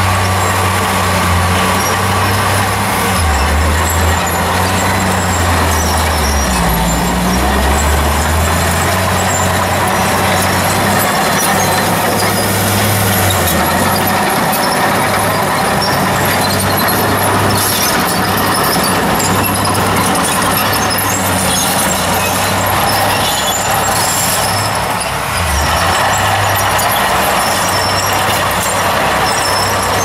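Small Komatsu crawler dozer's diesel engine running steadily as it pushes a pile of dirt, with the clatter of its steel tracks. About three seconds in, the engine note drops for several seconds, then recovers.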